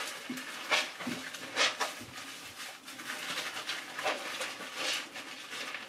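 Wet squishing of a sock lathered with shaving soap as it is rubbed and squeezed between hands in a sink, in strokes about once a second.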